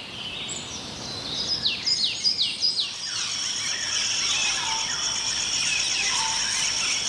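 Small cage birds chirping: a string of quick, falling chirps, then from about three seconds in a dense, steady chatter of many birds calling at once.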